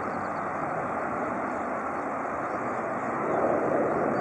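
Jet engine noise of a Boeing 737 climbing out after takeoff: a steady, even rush that swells a little about three seconds in.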